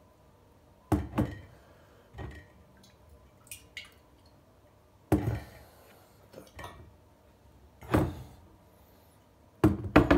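Heavy 3-litre glass jars full of kombucha being lifted and set down on a table: a series of solid knocks and thuds. The loudest come about a second in, around five seconds, around eight seconds and twice near the end.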